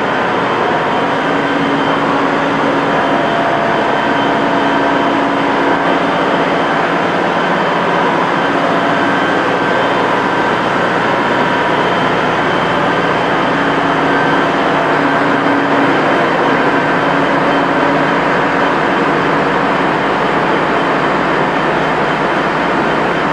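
Steady, loud machinery noise of a JCB backhoe loader's diesel engine running in an enclosed workshop, with a constant hum and no change in speed.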